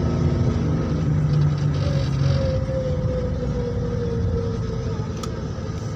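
Car engine and road noise heard from inside the cabin while the car climbs a mountain road, the engine note falling slowly in pitch in the middle. A single sharp click near the end.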